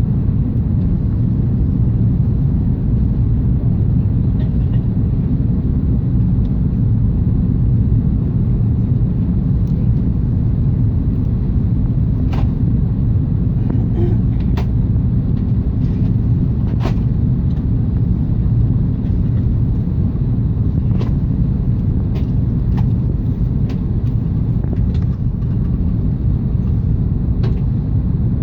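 Steady low rumble of engine and airflow noise inside the cabin of an Airbus A380 with Rolls-Royce Trent 900 engines, on approach. Scattered faint clicks come through in the second half.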